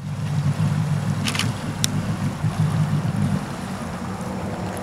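Personal watercraft (jet ski) engine running at low speed as it comes in, a steady low drone that eases off a little about three and a half seconds in, with a couple of brief clicks early in the run.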